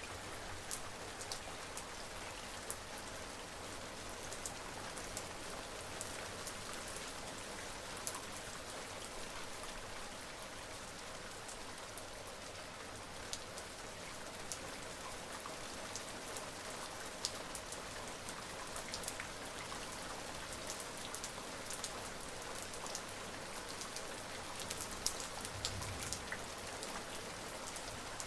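Steady rain falling, an even hiss dotted with frequent sharp ticks of single raindrops striking a surface.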